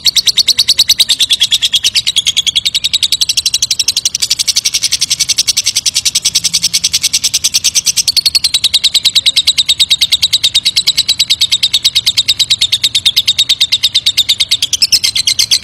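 Lovebird ngekek: one long unbroken chattering trill of rapid, sharp high notes, with no pause, its pitch drifting slightly up and back, and cut off right at the end. This is the long ngekek that keepers play as a bait call to get other lovebirds to answer and sing.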